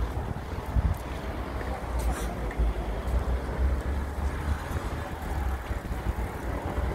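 Wind buffeting a phone's microphone during a walk outdoors, an uneven low rumble over a light hiss of open-air background noise.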